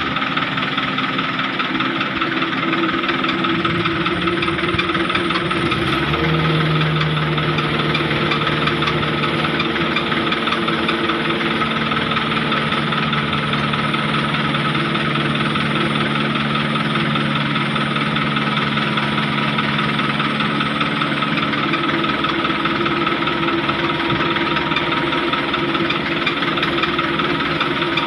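Diesel engines running steadily as a CAT mini excavator loads sand into a concrete mixer truck, with the engine note changing about six seconds in and then holding steady.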